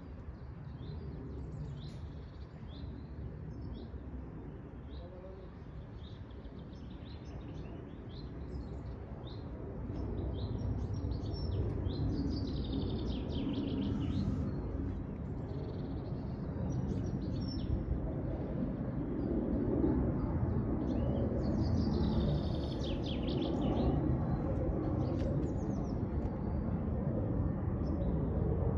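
Small birds chirping and singing repeatedly, over a low rumble that grows louder from about ten seconds in.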